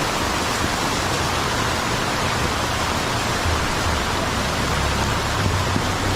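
Heavy rain falling steadily, an even hiss. A low rumble builds in the second half.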